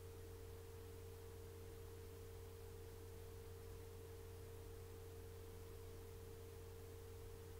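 Near silence: room tone with a faint steady low hum and a thin steady tone over soft hiss.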